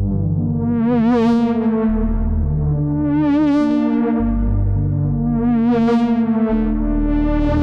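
Moog Muse analog polyphonic synthesizer playing held chords with vibrato over changing bass notes, its filter sweeping open and closed in slow, repeated swells about every two and a half seconds.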